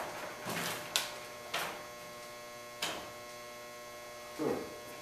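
Steady electrical mains hum, with a few sharp clicks and knocks and one short duller sound near the end.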